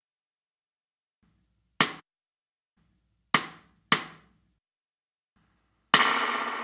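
Three short, dry, snare-like drum hits, then a fourth hit near the end that rings on in a long, slowly fading spring-reverb tail, from an emulation of a tube-driven spring reverb unit.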